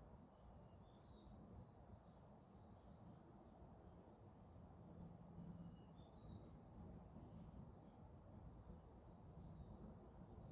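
Faint birdsong outdoors: many short chirps and brief whistles from small birds, over a low steady rumble.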